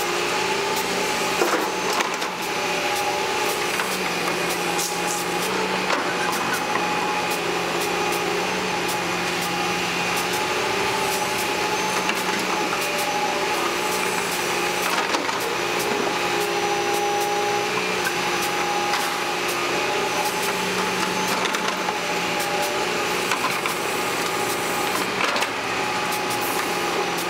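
Tracked hydraulic excavator running steadily, its diesel engine and hydraulic whine shifting in pitch as it digs and swings earth into a tipper truck, with a few sharp knocks of bucket and soil.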